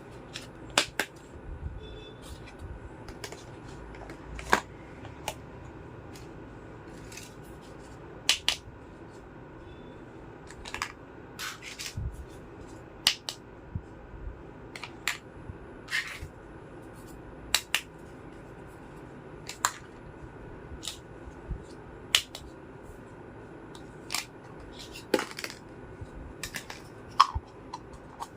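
Small toy kitchen pieces being unpacked and handled, giving irregular sharp clicks and taps about once a second.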